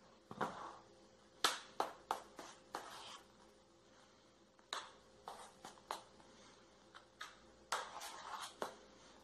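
Metal spoon spreading thick chocolate mousse filling in a round metal cake pan: irregular light clicks and short scrapes as the spoon taps and drags against the filling and the pan.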